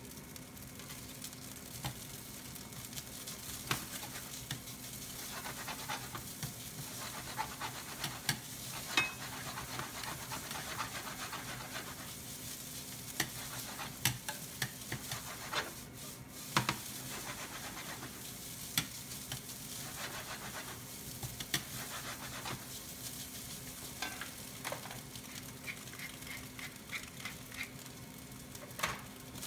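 Fried rice sizzling in sesame oil in a 28 cm ceramic non-stick frying pan on an induction hob, with a ladle scraping through the rice and knocking against the pan as it is stirred. Near the end, a pepper mill gives a short run of small clicks as it is twisted.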